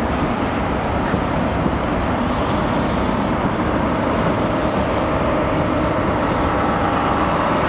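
A GWR High Speed Train with a Class 43 diesel power car moving along the platform: a steady rumble of the coaches rolling over the rails and the diesel engine running. A brief hiss comes about two seconds in, and a steady whine joins from about five seconds in as the power car nears.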